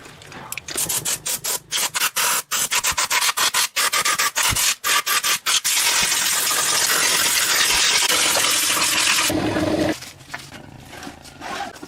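Hand abrasive work on a workpiece: quick back-and-forth rubbing strokes, several a second, then a few seconds of continuous rasping that stops abruptly near the end.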